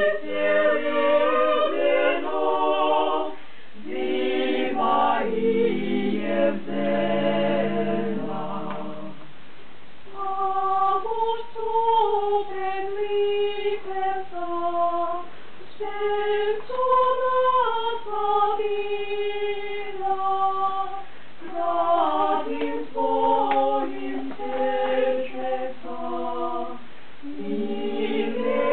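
Small mixed group of women and men singing a cappella in parts. About a third of the way in, the low voices drop out and only the higher voices carry the song for roughly ten seconds, then the full group comes back in.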